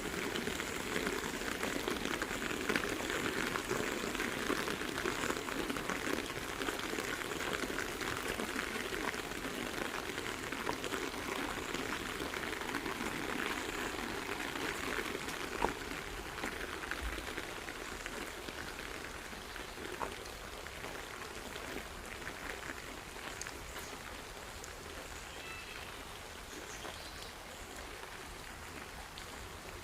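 Heavy rain falling steadily, slowly easing off toward the end, with a couple of sharp drip-like ticks about halfway through.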